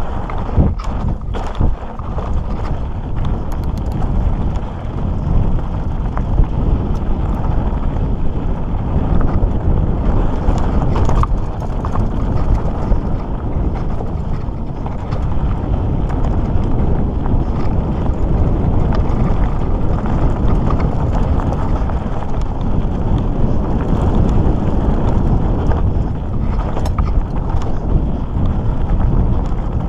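Mountain bike rattling and knocking as its tyres roll and crunch over a loose, rocky dirt trail, with a steady low rumble of wind on the microphone. Irregular sharp knocks from the bike hitting stones come throughout.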